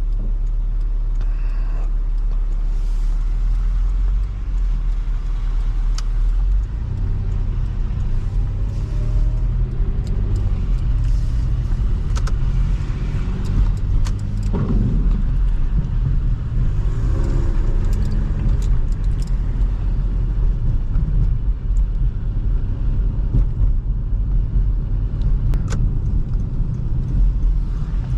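2005 Toyota Highlander with its 3.3-litre V6 driving on slushy winter roads: a steady rumble of engine and tyres, with scattered small clicks and a brief rising-and-falling tone about halfway through.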